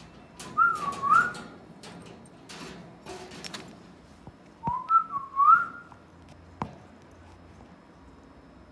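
Two short whistled phrases, each gliding up and down in pitch, the first about a second in and the second about five seconds in, with a few sharp clicks between and after them.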